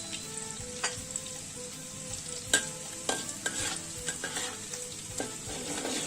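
Dried anchovies (ikan bilis) frying in hot oil in a wok, with a steady sizzle and crackle as they crisp up. A utensil scrapes and knocks against the pan several times as they are stirred.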